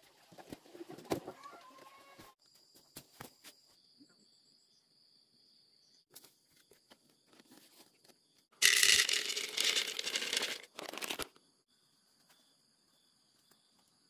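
Dry grains poured from a plastic packet into a hollow bamboo tube: a loud hissing rattle lasting about two seconds, then a short second pour. Softer rustling and handling clicks come before it, and a faint steady insect chirr sits underneath.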